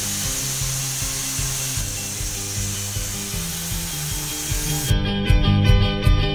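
Pressure washer jet hissing steadily as it sprays solar panels, with a low hum underneath. About five seconds in, the spray cuts off and guitar music takes over.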